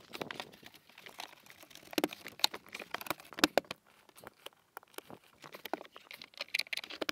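Irregular clicks, knocks and rustling as a carpeted plastic boot side trim panel of a Range Rover L322 is handled and pressed back into place.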